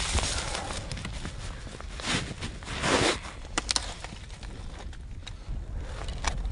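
Handling noise of a person working under a spruce: rustling and crackling of twigs and forest-floor litter in two swells, with a few sharp clicks, as a microphone and its tripod are set in place. A low rumble of wind on the microphone runs beneath.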